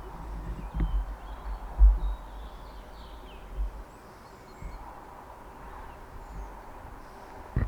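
Outdoor ambience: faint bird chirps over a low wind rumble on the microphone, with a few gusts thumping.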